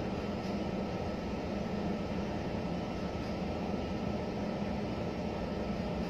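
Steady background drone: an even hiss with a low hum and a faint thin high tone running through it, with no distinct events.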